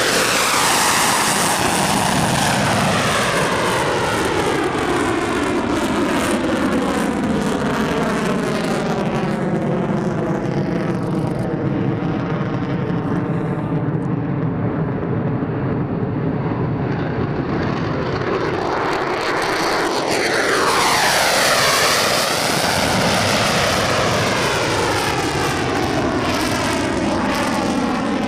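F-22 Raptor jet engines running hard as the jet climbs away, the noise sweeping downward in pitch like a phasing whoosh. The high end fades as it recedes, then the sound swells again as a jet comes past, loudest about three-quarters of the way in.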